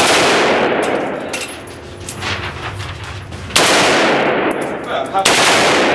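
Automatic rifle firing three bursts of full-auto fire at the start, about three and a half seconds in and about five seconds in, each ringing on in the range's reverberation.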